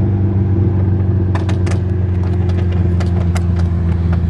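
Tuned Audi S3's turbocharged four-cylinder engine running steadily at cruise, heard as a constant low drone inside the cabin. A run of sharp clicks comes through in the middle.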